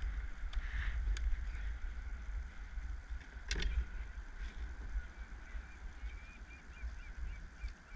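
Low wind rumble on the microphone of a kayak on open water, with a single sharp knock about three and a half seconds in and a run of faint, quick, high chirps near the end.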